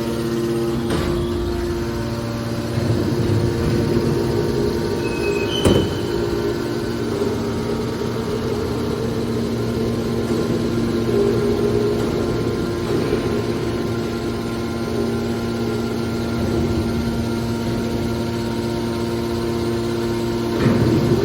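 Metal scrap compactor baler running with a steady machine hum, with a sharp metal knock about six seconds in and another near the end.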